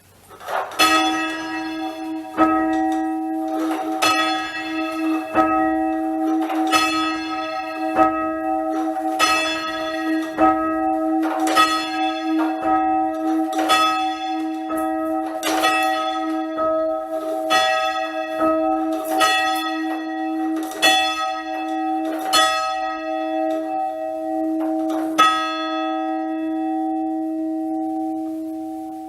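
A single church bell being rung down from the up position to make it safe, its swing dying away. The strikes come roughly every one and a half seconds at first and steadily closer together. After the last stroke near the end, the bell's hum rings on and fades.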